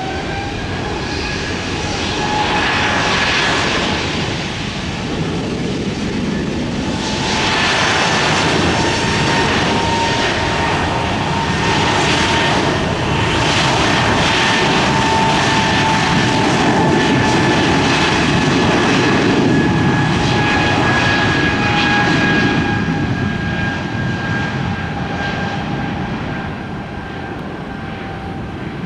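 Breeze Airways jet airliner's turbofan engines spooling up for takeoff, a whine rising in pitch over the first couple of seconds. Then a loud, steady rush with a high whine at takeoff power as the jet rolls down the runway, easing off over the last few seconds.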